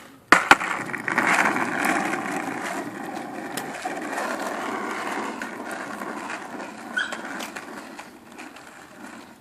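Two sharp knocks, then a remote-control toy car's electric motor and tyres running on pavement, a steady rolling noise that slowly fades as the car drives away.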